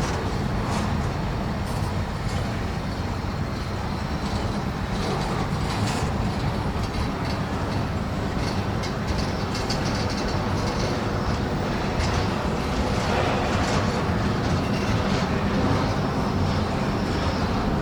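Freight train cars rolling past: a steady rumble of wheels on rail, with faint clicking over the rail joints.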